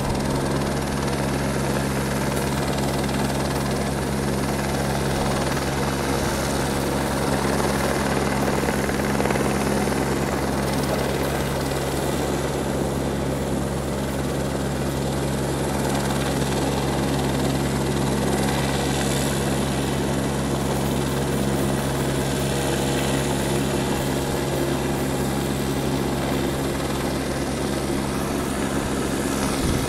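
Police helicopter flying, its rotor and engine making a steady, unchanging drone.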